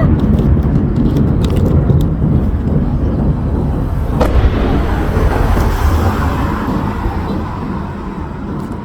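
Fireworks bursting overhead: a heavy low rumble of booms, with crackling pops in the first couple of seconds and a single sharp bang about four seconds in, the rumble dying away toward the end.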